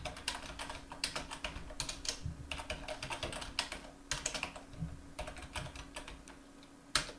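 Typing on a computer keyboard: a run of quick, irregular keystrokes that stop about a second before the end, then one louder key press.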